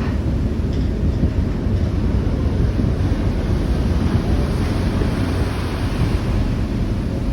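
Strong wind buffeting the microphone, a loud steady low rumble, mixed with the rush of a rough sea.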